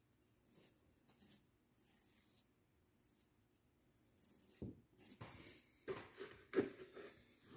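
Soft, repeated swishes of a brush dabbing joint compound onto a textured drywall wall. About halfway through, louder, irregular sounds take over: a dog whimpering and breathing hard, with brief whines.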